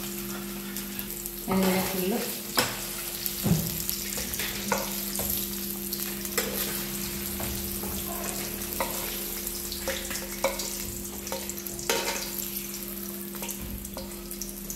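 Paneer cubes sizzling gently in coconut oil in a nonstick frying pan on a lowered flame, with a metal spatula scraping and clicking against the pan as the browned cubes are lifted out. A steady low hum runs underneath.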